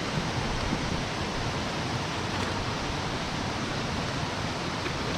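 Steady rushing of a mountain stream's flowing water, an even noise with no break.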